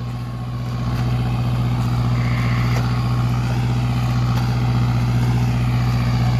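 Mahindra Arjun Novo 57 hp tractor's diesel engine running steadily under heavy load while driving a rotavator through deep paddy mud, getting louder over the first second as it comes close. The owner says the tractor is working at full load and close to stalling.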